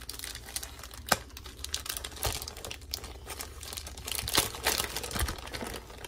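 Plastic cheese packet crinkling and rustling as it is handled and pulled open by hand, with a sharp click about a second in.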